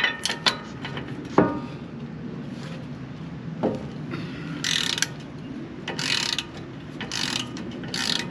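A hand ratchet wrench working a nut: a few sharp metallic clicks, then from about halfway through, repeated strokes of pawl clicking roughly once a second.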